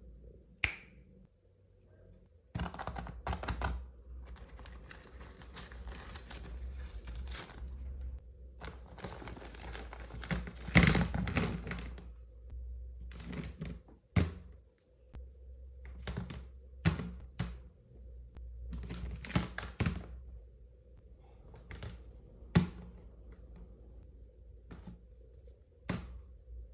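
Animal toy figures and their packaging being unboxed and handled: a series of knocks and taps as toys are picked up and set down, with stretches of packaging rustling in between.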